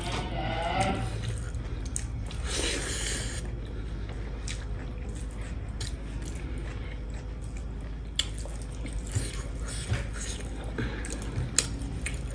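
Close-up eating sounds: chewing and biting mouthfuls of rice and meat, with fingers mixing rice on steel plates and a few sharp small clicks in the second half.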